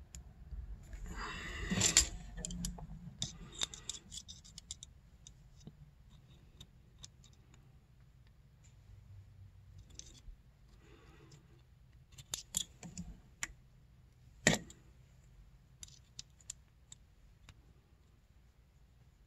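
Small metal handling noises as a digital caliper is set against a snowmobile power valve cable end: a short scrape about a second in, then scattered sharp clicks and taps, the loudest about two seconds in and again about fourteen seconds in, over a faint steady low hum.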